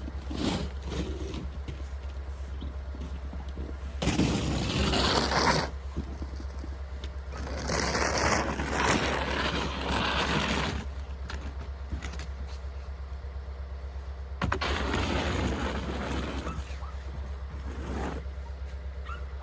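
Snow shovel scraping through snow on a deck in a few long pushes of a second or more each, over a steady low engine hum from the skid steer running nearby.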